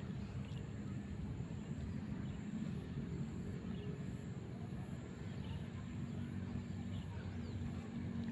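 A steady low motor drone, with a few faint bird chirps over it.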